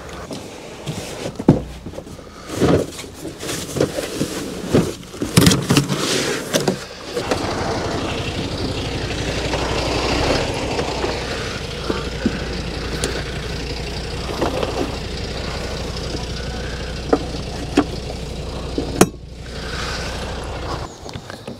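Knocks and clatter as a motorhome's exterior storage hatch is opened and a boxed Starlink kit is pulled out and unpacked. After that, a steady rumbling noise with a few sharp clicks.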